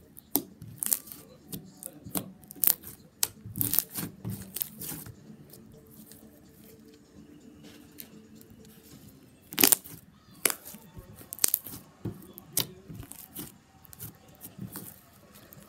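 Slime being squeezed and pressed by hand, giving irregular sharp clicks and pops, thickest in the first few seconds, with a quieter spell in the middle and two loud pops about ten seconds in.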